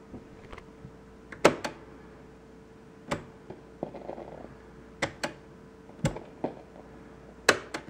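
Cassette deck transport keys on a Lenoxx Sound TV-36 portable TV/stereo being pressed and released: sharp mechanical clicks, mostly in pairs, every second or two, over a faint steady hum.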